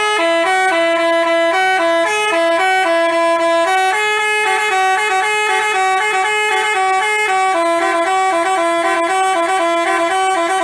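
Telolet basuri bus horn playing a melody: a rapid run of stepping, short and held notes sounded without a break.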